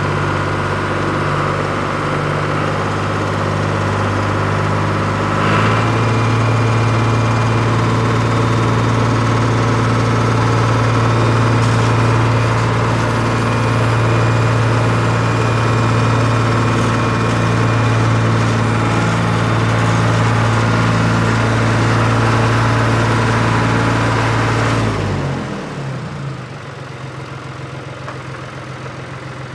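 Engine of heavy farm harvesting machinery running steadily. Its tone shifts and grows a little louder about five seconds in, then gives way to a quieter engine sound near the end.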